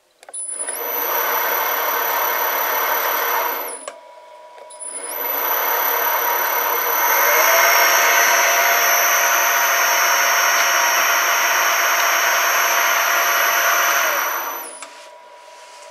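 Metal lathe's electric motor and spindle, run through a frequency inverter from a homemade joystick. It runs for about three seconds, stops briefly, then runs again for about ten seconds before winding down. A steady high-pitched whine sits over the running noise.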